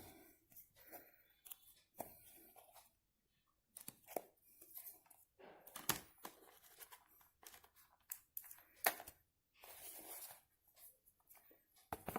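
Faint handling noise: scattered clicks, taps and short rustles of small items being moved about and set down.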